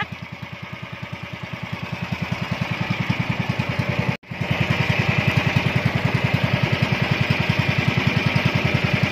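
Small engine of a motorized outrigger fishing boat running with an even, rapid beat. It cuts out briefly about four seconds in, then runs on a little louder.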